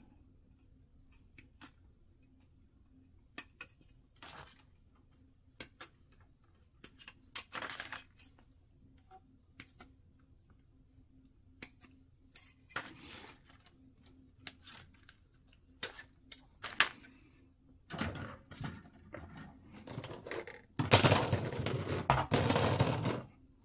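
Plastic model kit parts being clipped off their runners and handled: scattered sharp clicks and snips, with a louder, busier stretch of plastic clattering near the end.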